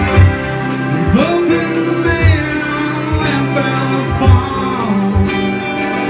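A live band playing a country-rock song: twelve-string acoustic guitar, electric guitar, accordion and drums, with a lead vocal. The bass drum lands about once a second.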